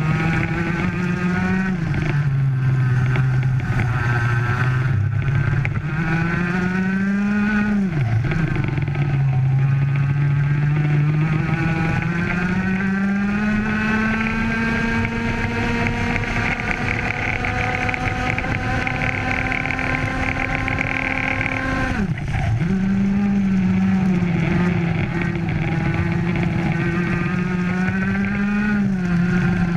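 Two-stroke racing kart engine heard onboard at race pace. Its revs climb slowly along the straights, and the pitch drops sharply under braking about eight seconds in and again about two-thirds of the way through, then picks up again. It dips once more near the end.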